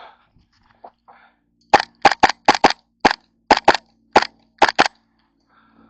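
Airsoft pistol firing about eleven sharp shots in quick succession, some fired as rapid pairs, starting a couple of seconds in.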